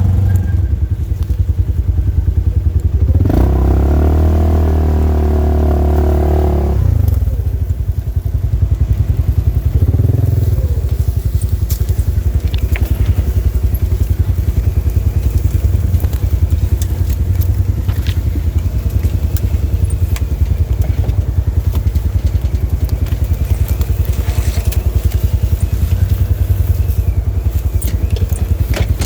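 Polaris RZR side-by-side engine running at low trail speed, with a burst of throttle about three seconds in that lasts a few seconds before dropping back. Scattered clicks and snaps sound over the engine.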